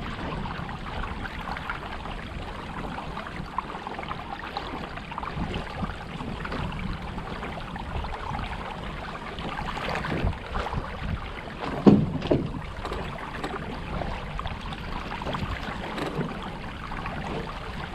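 An engine running with a steady rough rumble, and a brief louder swell about twelve seconds in.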